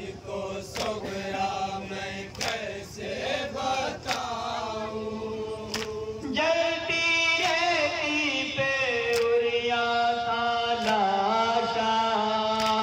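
Male voices chanting a nauha, a Shia lament, through a microphone, with a fuller, louder voice taking up long held notes about halfway through. A sharp slap about every one and a half seconds keeps time: chest-beating (matam) by the mourners.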